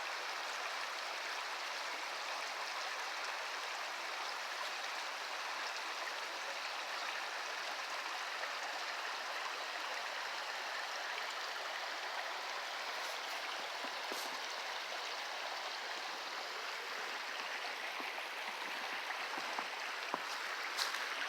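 Waterfall on a fast-flowing river: a steady, even rush of water. A few faint clicks come near the end.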